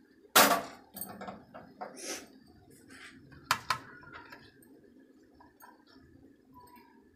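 Glass dish being handled and set down on a table: a loud knock about half a second in, a few lighter clinks, then two sharp clinks about three and a half seconds in.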